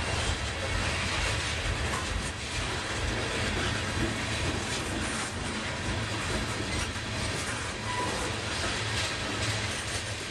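Freight train tank cars rolling past steadily, their steel wheels rumbling and clacking on the rails.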